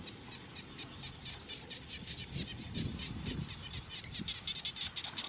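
Small animals calling outdoors: rapid high-pitched chirps repeating many times a second, with some lower calls a couple of seconds in.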